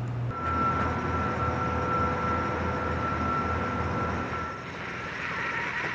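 Ford pickup truck's engine running as it tows a jet engine on a wheeled transport trailer, a low rumble with a steady high whine over it.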